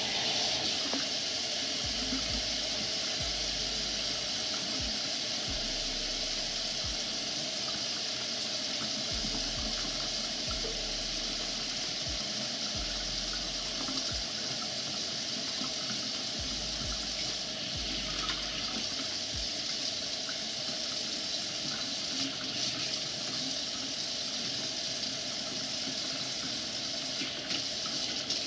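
Kitchen sink faucet running steadily, its stream splashing into the sink and over hands and dreadlocks held under it.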